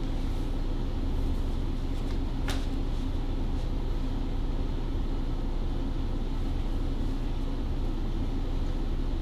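Steady low hum with a faint even hiss, and one short click about two and a half seconds in.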